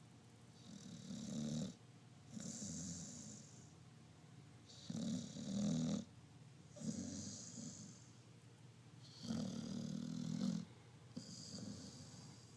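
Rhythmic snoring from a sleeper in deep sleep, six breaths about two seconds apart.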